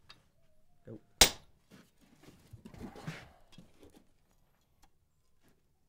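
A single sledgehammer blow on a blacksmith's handled top tool held against a red-hot iron strap on the anvil, a sharp ringing clang about a second in. About two seconds of fainter scattered noise follow.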